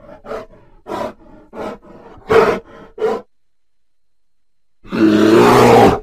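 Grizzly bear grunting in a run of short huffs, about two or three a second, then after a pause a long, loud roar that starts near the end.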